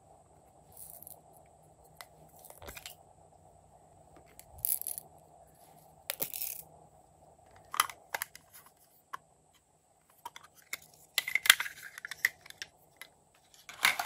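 Hands handling small plastic cases and containers: scattered clicks, taps and short scraping rustles, with a cluster of louder clicks about two-thirds of the way in and another right at the end. A faint steady hum runs underneath.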